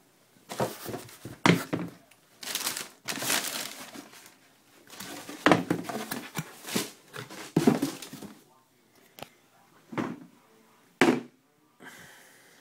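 Tissue paper in a cardboard shoebox rustling and crinkling as it is handled, in irregular bursts with a few sharp knocks.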